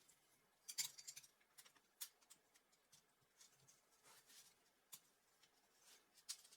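Faint, scattered clicks and short rustles of Lego Technic pieces being handled, with a sharper click about a second in and another near the end.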